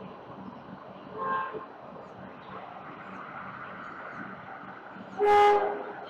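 Steady city traffic hum, with a short faint horn-like tone about a second in and a loud vehicle horn sounding once for under a second near the end.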